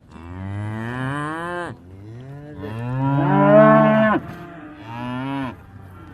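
Domestic cow mooing three times, each call a long pitched low that rises and then drops away; the middle moo is the longest and loudest.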